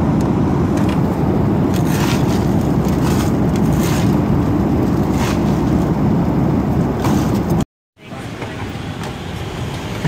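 Airliner cabin noise in flight: a steady low rush of engines and airflow, with scattered light clinks from the drink cart's bottles and drawers. Near the end it cuts off abruptly and gives way to a quieter hum.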